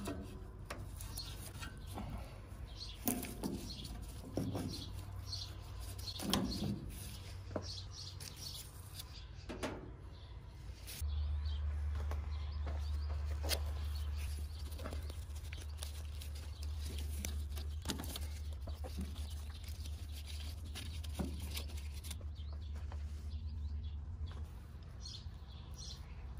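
Scattered clicks and light knocks of hand work on a Ford 2N tractor's front-mounted distributor as the coil, spark plug wires, cap and rotor are taken off. A low steady hum comes in about halfway through and fades near the end.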